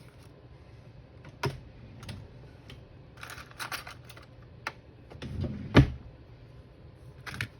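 Irregular light clicks and taps of small craft supplies being handled on a work table, with one louder, duller knock a little before the end as something is set down.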